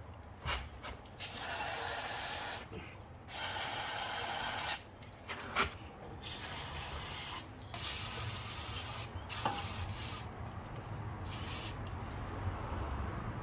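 Aerosol brake cleaner sprayed onto the brake caliper mounting surfaces in about five hissing bursts of a second or so each, with quieter brush scrubbing between the bursts.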